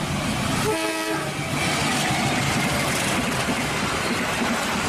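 KAI diesel locomotive hauling a passenger train past, with a steady rumble of engine and wheels on the rails. It gives a brief horn toot about a second in.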